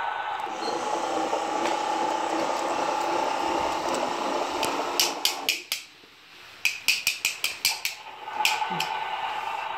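Plastic toy trucks being handled: a steady hum, then a quick run of sharp ratcheting clicks, about seven in a second and a half, after a short quiet spell.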